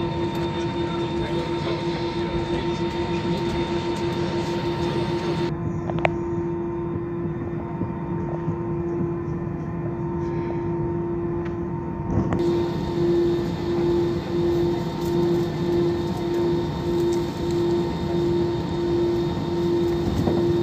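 Airliner cabin noise while taxiing on the ground: the jet engines at low thrust give a steady hum. About halfway through, the hum starts to throb in a slow, even beat. A single sharp click comes about six seconds in.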